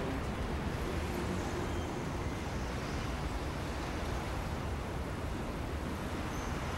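Steady city street traffic noise: an even wash of passing traffic with no distinct events.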